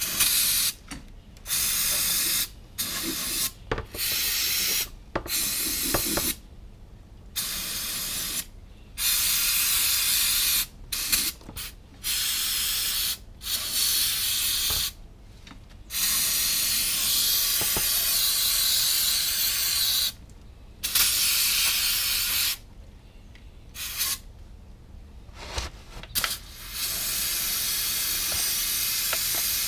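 Aerosol can of brake parts cleaner spraying in repeated bursts of hiss, some short and some several seconds long, with brief pauses between.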